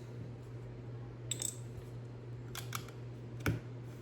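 A few sharp clicks of small plastic Lego pieces being handled and set down, the loudest near the end, over a steady low electrical hum.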